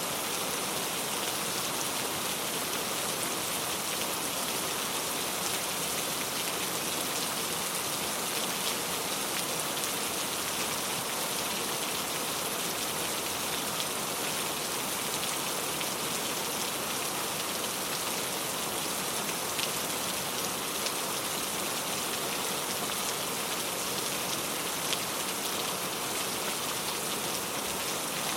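Steady rain falling, an even hiss with many fine drop ticks, unchanging throughout.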